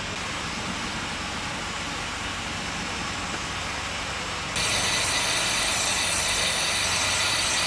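Steam road roller's engine running slowly while stationary, its motion clattering lightly. About halfway in a loud steady hiss starts and holds.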